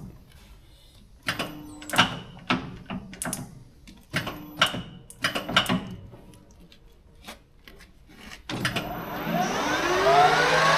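Metal lathe's levers being shifted, a string of sharp clunks and knocks. About eight and a half seconds in the lathe is started and its spindle runs up to speed with a rising whine that then holds steady.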